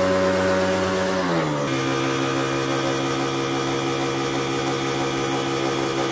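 Electric pressure washer running with a steady motor hum and water spraying from the lance. About a second and a half in the hum drops in pitch and settles lower as the machine takes up load.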